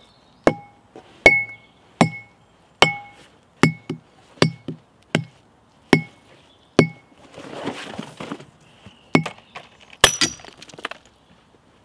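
Green glass bottle knocked repeatedly against the sawn end of a large log: a dozen or so hard knocks, each with a short glassy ring, about one every two-thirds of a second. About eight seconds in comes a scraping rustle, then a brighter, harder hit about ten seconds in.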